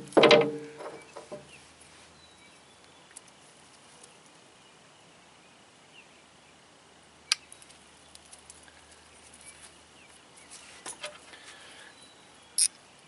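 Quiet outdoor background with a faint steady high insect tone, broken by small ticks and clicks of pliers and parts being handled against an aluminium power steering pump, two sharper clicks standing out about seven and twelve seconds in. A brief voice sound opens it.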